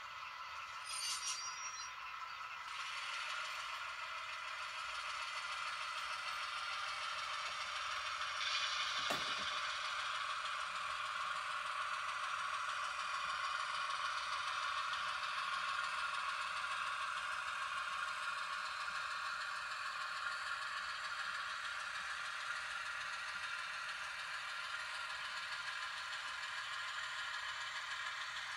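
HO scale model diesel locomotive running slowly along the track with a covered hopper in tow: a steady mechanical running sound with a light rattle, and a brief falling sweep about nine seconds in.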